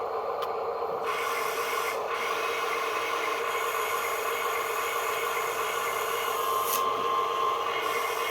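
A toy vehicle's small electric motor whirring steadily with a rasping, grinding edge, its pitch holding level, with a single brief click about seven seconds in.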